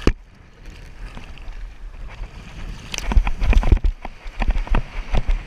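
A sharp knock, then a soft hiss of water for a few seconds, then irregular gusts of wind buffeting the camera microphone over small waves washing ashore.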